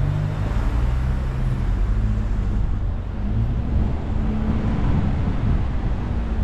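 Car engine and road noise while driving, a steady low rumble with the engine note rising and falling a few times.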